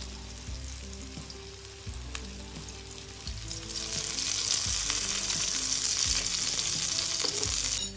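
Sausages and coarse chili sambal sizzling in hot oil in a wok. The sizzle grows louder about halfway through as lime juice is squeezed into the hot oil.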